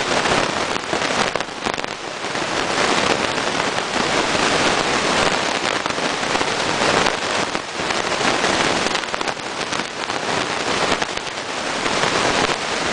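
A litter of Fila Brasileiro puppies eating dry kibble together from many bowls: a dense, steady crackle of crunching and clinking.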